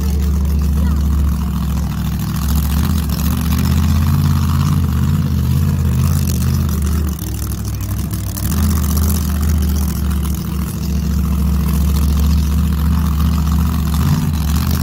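Monster truck engines running with a deep, steady rumble, easing off briefly a couple of times.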